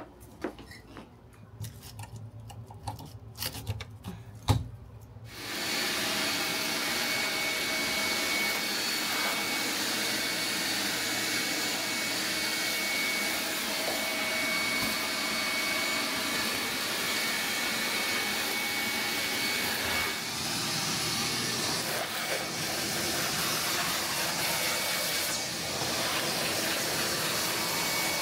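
Electric shop vacuum handled with a few clicks and knocks, then switched on about five seconds in and running steadily with a whine, dipping briefly a few times in the second half.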